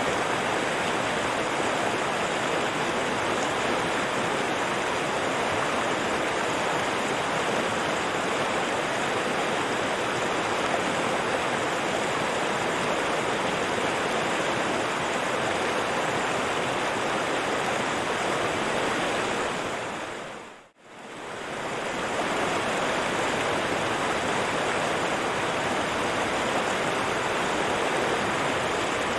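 River water rushing and splashing steadily, an even wash of flowing-water noise. About two-thirds of the way through it fades out to near silence for a moment and straight back in.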